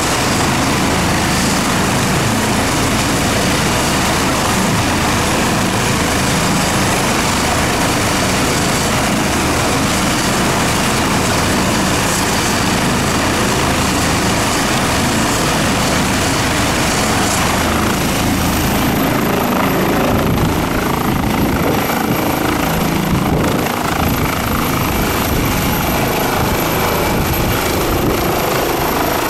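Airbus H135 trauma helicopter's turbines and rotor running at flight speed on the ground, then lifting off and climbing away. A high turbine whine steps up in pitch a little past halfway through.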